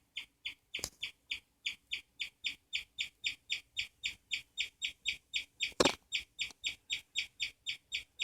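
Guinea pigs wheeking: an even run of short, high squeals at about four a second. A sharp knock comes about a second in and a louder one near six seconds.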